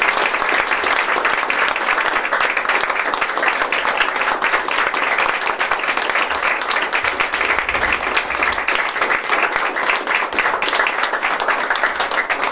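A roomful of people applauding: steady, dense clapping that holds throughout.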